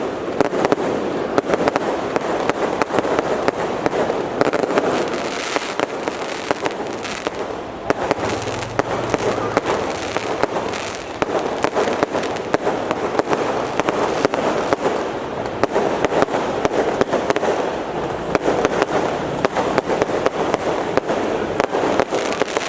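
Fireworks display going off in a continuous dense barrage: many rapid, overlapping bangs and crackles with no pause.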